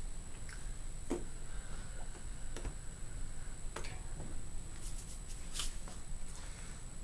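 A few soft clicks and brushing sounds of a person's hands tapping and sliding against each other while signing, over a steady electrical hum and a faint high whine from the recording.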